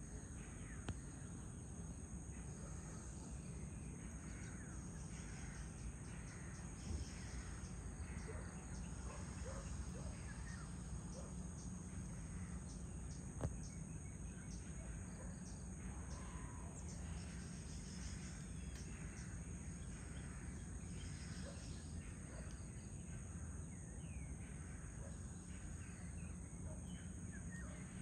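Garden ambience: a steady, high-pitched insect trill, like crickets, runs throughout, with scattered short bird chirps and a low background rumble. A single sharp click comes about halfway through.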